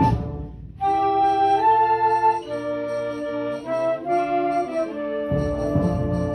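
Band playing a soft passage of held wind chords. After a brief drop just after the start, the chords change about once a second, and a louder, fuller passage comes back in near the end.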